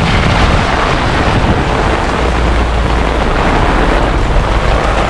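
Heavy rain and strong wind in a thunderstorm, a loud steady rush with deep low rumbling from wind buffeting the microphone.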